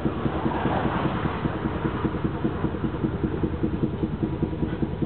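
Tram's onboard air compressor running while the tram stands still: a rapid, even chugging of about five beats a second.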